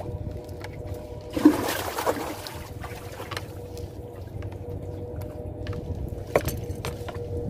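Small fishing boat on a river: a steady low hum, a short splash of water about a second and a half in, and a single sharp knock near the end.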